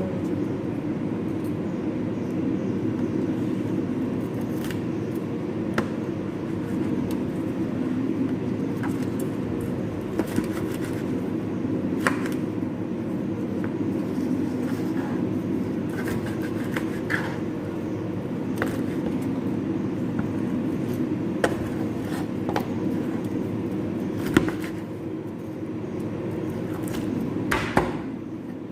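Utensils and dishes clinking and knocking now and then over a steady low hum, with a few sharper knocks near the end.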